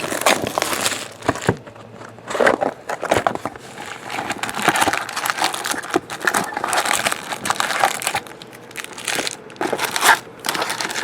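Plastic shrink-wrap on sealed trading-card boxes crinkling and tearing as it is cut and pulled off, in irregular bursts of crackling rustle.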